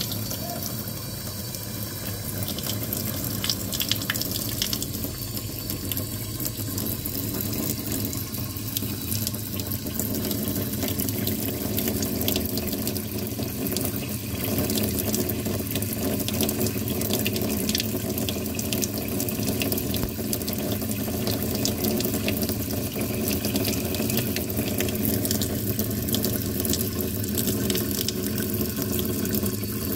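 Water running from a kitchen faucet into the sink, a steady splashing rush that grows a little louder about ten seconds in.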